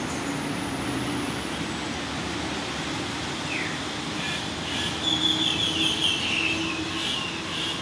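Steady street traffic noise, with a high, wavering squeal lasting about two seconds in the second half.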